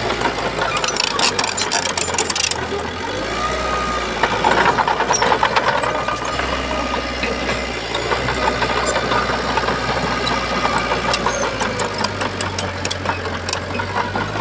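Heavy diesel earthmoving machinery running, its engine note shifting up and down a few times, with a rapid clatter of sharp clanks over it.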